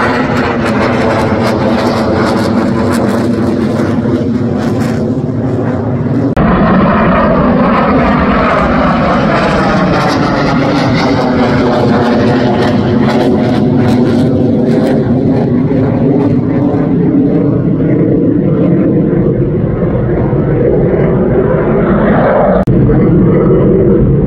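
Military fighter jets taking off and climbing away, their jet engines loud and steady with a sweeping, phasing whoosh that rises and falls in pitch. The sound changes abruptly to another takeoff about six seconds in and again near the end.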